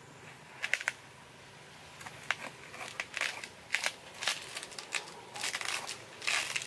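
Irregular crackling and rustling as a jackfruit is shifted and turned on a banana leaf, the leaf and the fruit's rough rind crinkling and scraping under her hands. The crackles come in short clusters, growing busier from about two seconds in.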